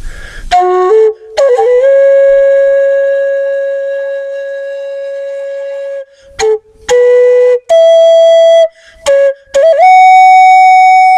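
Slow flute music: one long held note, a few short notes, then a second long held note a little higher, fading near the end.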